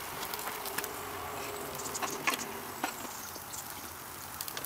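Nachos sizzling faintly in a metal pan on a hot grill: a soft hiss with scattered small crackles and clicks. A faint steady buzz runs through the first two seconds or so.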